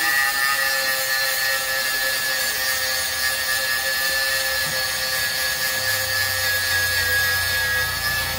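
A machine running steadily: an even hiss with a constant high whine.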